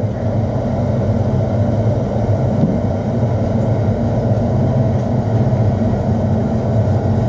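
Blacksmith's forge running with a steady, even rumble while a tapered bar of 1/4-inch square steel heats for twisting.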